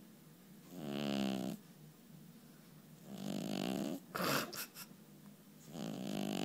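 A sleeping cat snoring: three snores, each about a second long, coming about every two and a half seconds. A brief, sharper burst of noise comes just after the second snore.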